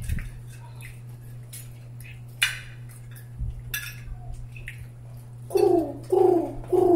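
Spoons and forks clinking and scraping on plates as people eat, as scattered light clicks over a steady low hum. Near the end, a man's voice makes three short, loud syllables.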